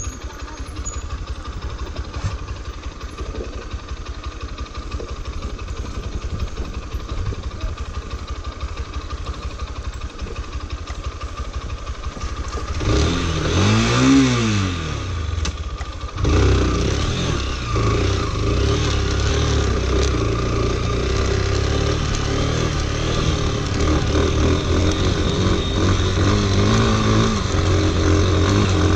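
Lifan KPT motorcycle engine running at low revs over a rough dirt track. About halfway it is revved up and back down over a couple of seconds, then it runs louder and steadier at higher revs.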